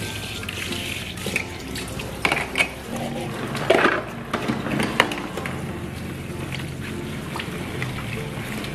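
Tap water running into a kitchen sink while plastic plates and bowls clatter as they are stacked into a plastic dish rack, with a few sharp knocks between about two and five seconds in.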